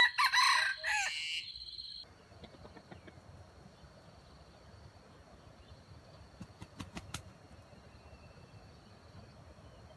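A junglefowl rooster crows once, a short crow of under two seconds at the start. After it a steady high-pitched tone carries on, with a few faint clicks about seven seconds in.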